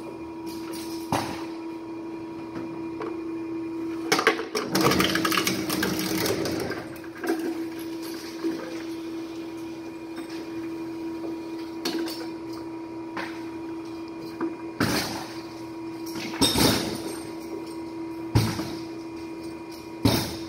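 Industrial hard-drive shredder running with a steady hum. About four seconds in, a Seagate 3.5-inch hard drive goes into the cutters and is crunched and torn apart for around three seconds. The hum then carries on, with a few sharp knocks.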